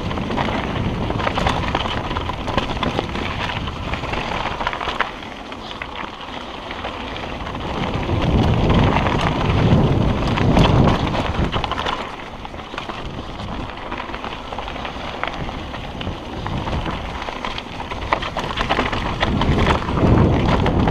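Mountain bike descending a rocky dirt trail at speed: tyres crunching and skittering over loose stones, with a constant clatter of small knocks and rattles from the bike. Wind rushes over the camera microphone, rising in two louder surges, around the middle and near the end.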